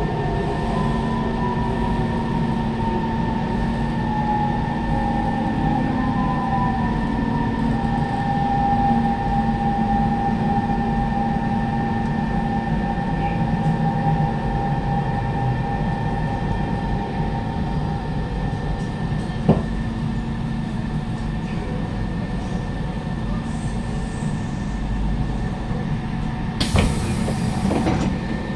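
Siemens C651 metro train's traction motors whining over a steady running rumble inside the car, the whine sliding down in pitch over the first few seconds and then holding level. A single sharp click comes about two-thirds of the way in, and a short burst of hiss near the end.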